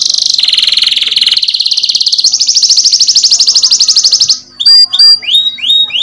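Domestic canary singing a loud rolling song: a chain of very rapid trills, each held for a second or two before switching to a new pitch. About four seconds in, the song breaks off briefly and gives way to a few quick upward-sweeping whistled notes.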